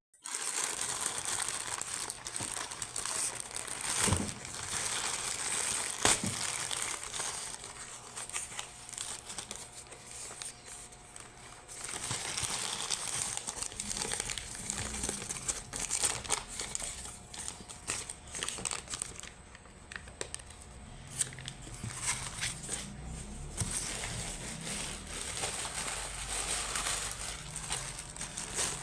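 Packaging crinkling and rustling as it is handled and opened, with a couple of sharp clicks about four and six seconds in.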